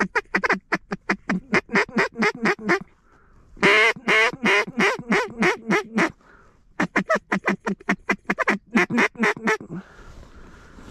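Mallard duck call blown in three runs of quick quacks, the middle run the loudest, calling to draw passing mallards to the decoys.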